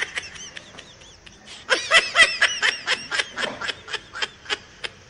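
High-pitched laughter: a quick run of short 'ha' syllables, about four a second, faint at first and louder from about two seconds in.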